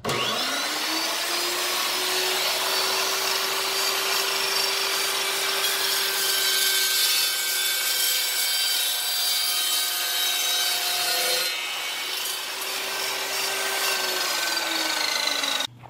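Chop saw motor spinning up, its blade cutting through white PVC pipe with a steady whine and rasping, then winding down near the end.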